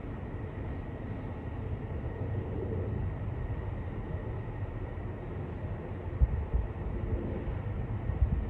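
Antonov An-124's four D-18T turbofans heard from the ground as the freighter cruises at altitude: a steady low rumble with a faint high tone. A couple of brief low bumps come about six and eight seconds in.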